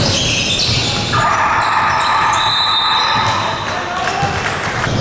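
Basketball game on a hardwood court: the ball bouncing and sneakers squeaking on the floor, with a drawn-out high squeal from about one to three seconds in.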